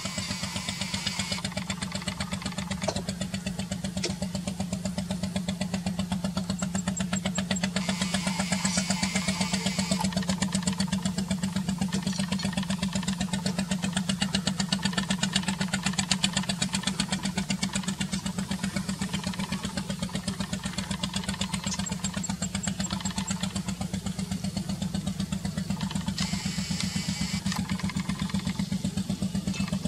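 Small fishing boat's inboard diesel engine chugging steadily as the boat motors past.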